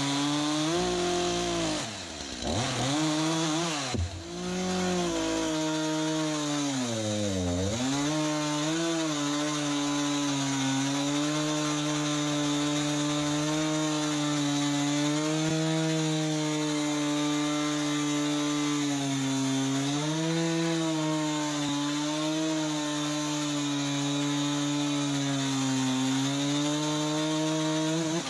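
Chainsaw bucking logs into firewood rounds. The engine's pitch sags sharply several times in the first eight seconds as the chain bites, then holds fairly steady under load with slight wavering.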